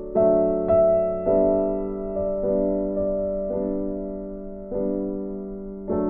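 Background piano music: gentle notes and chords struck every second or so, each ringing and fading before the next.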